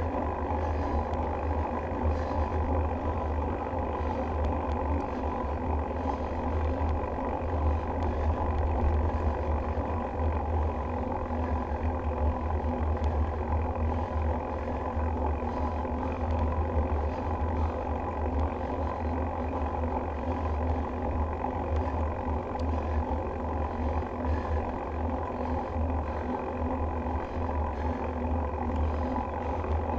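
Steady low rumble of wind on a GoPro's microphone and bicycle tyres rolling on cracked asphalt while riding along.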